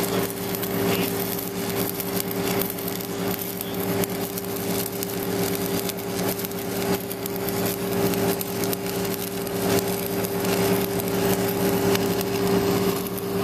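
Stick-welding arc crackling steadily as a pipeline welder runs a bead around a pipe joint, over the steady drone of an engine running.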